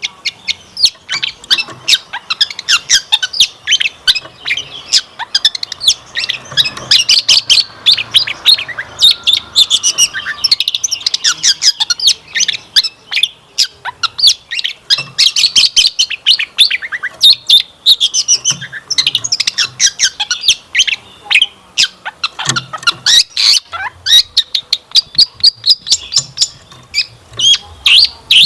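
Long-tailed shrike (cendet) singing a fast, unbroken run of varied chattering notes and harsh squawks, packed with mimicked phrases ('isian'), in a lure song meant to set other shrikes singing.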